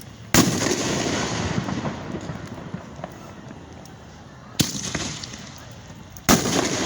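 Fireworks going off: three sharp bangs, about half a second in, near the middle and near the end, each trailing off in a crackling rumble over a second or two.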